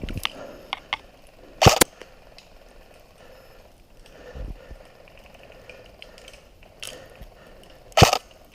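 Two sharp shots from an airsoft rifle, each a quick double crack, fired about six seconds apart.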